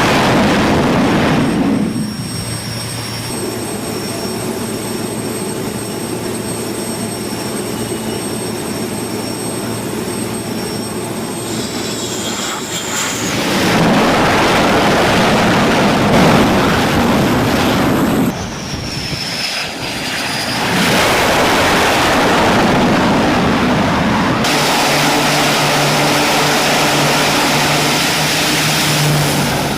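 Aircraft engines running, with a steady high whine through parts of it, in several segments that change abruptly as if cut together.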